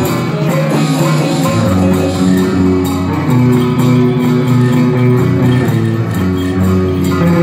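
Loud instrumental music with a repeating bass line under a changing melody of held notes.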